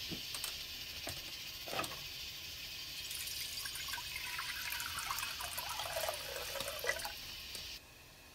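Water poured from a plastic pitcher into an empty nonstick pot, splashing and gurgling as the pot fills. The pour stops suddenly near the end.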